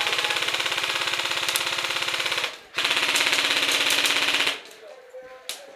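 Airsoft gun firing full-auto in two long bursts, the first about two and a half seconds and the second nearly two seconds after a brief pause, each a rapid even stream of shots.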